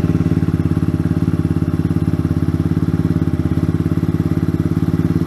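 Kawasaki Z125 Pro's small single-cylinder four-stroke engine running steadily through its aftermarket Yoshimura exhaust, with an even, rapid exhaust pulse and no change in engine speed.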